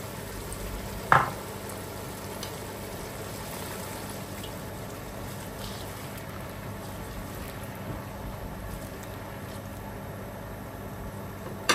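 Onion and spice masala bubbling and sizzling steadily in a cooking pot, with a cup of tamarind water just added. A sharp knock comes about a second in and another at the very end.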